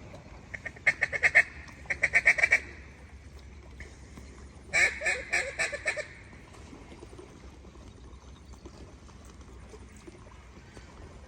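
Mallard-style quacking in three quick, loud runs of rapid quacks about a second and a half long each, the last one a little after four and a half seconds in.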